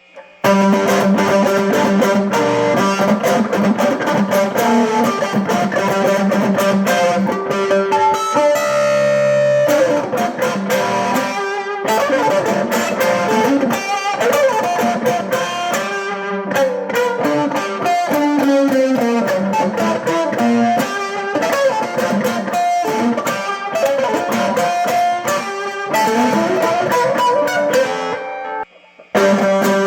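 Homemade electric mandolin played through a shop amplifier and a fuzz pedal, ripping fast picked licks. It has a passage of rapidly repeated notes about nine seconds in and a brief stop shortly before the end.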